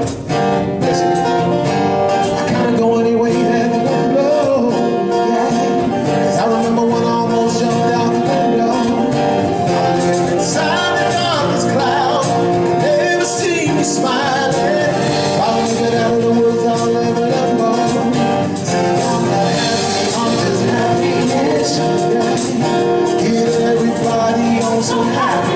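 Live song performance: a man singing over music with guitar.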